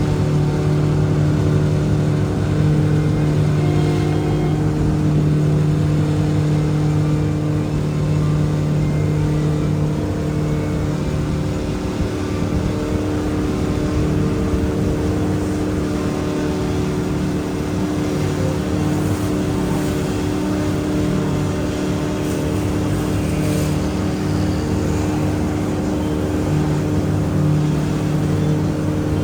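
A river ferry boat's engine running steadily while under way, with a constant low drone. The lowest tone weakens for a while in the middle, then comes back.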